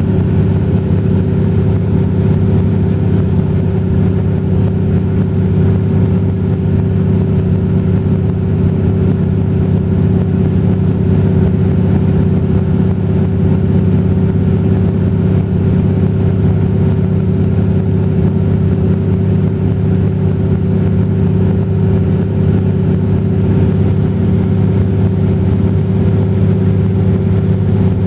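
Light aircraft's engine and propeller droning steadily in flight, heard from inside the cabin, a constant mix of low tones and rushing noise.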